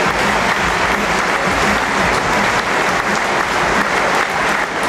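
Large audience applauding steadily, a dense wash of clapping that welcomes a player as he is introduced and walks out.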